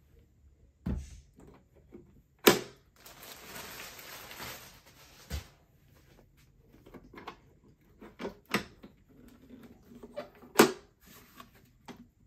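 Handling knocks and thumps as a portable power station is set down on a desk and picked up again, the two loudest sharp knocks about two and a half and ten and a half seconds in. Plastic bag rustling for a couple of seconds after the first loud knock.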